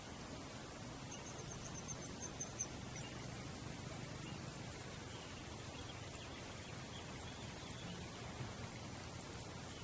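Faint, steady outdoor background hiss. About a second in, a quick run of about eight short, high chirps sounds, and fainter chirps come later.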